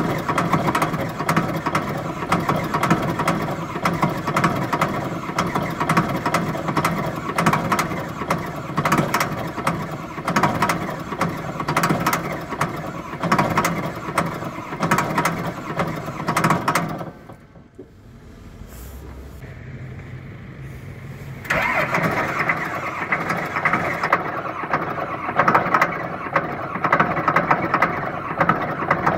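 Shantui SD16 bulldozer's diesel engine running unevenly just after a hard start in frost. About two-thirds of the way through, the sound falls away sharply for about four seconds, then comes back suddenly at full level.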